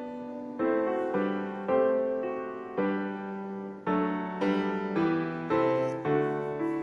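Background piano music: a slow melody of struck notes and chords, a new note about every half second to second, each left to ring and fade.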